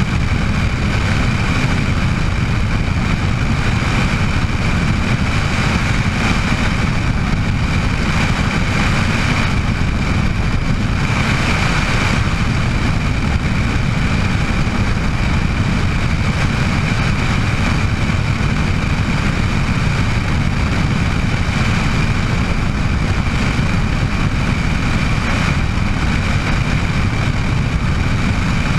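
Bell 206 JetRanger helicopter running steadily: a constant low rotor and engine drone with a steady high turbine whine over it.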